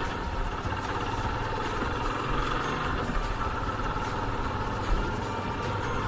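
Yamaha FZ25 motorcycle's single-cylinder engine running steadily, with a rumbling low end.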